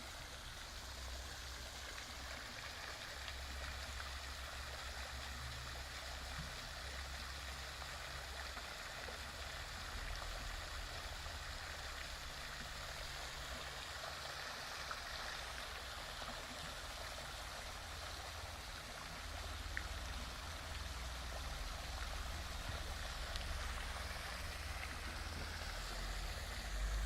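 Water running steadily, with a low rumble underneath.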